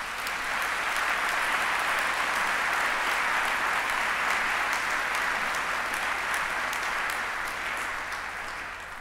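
Audience applauding, swelling up at the start, holding steady, then dying away near the end.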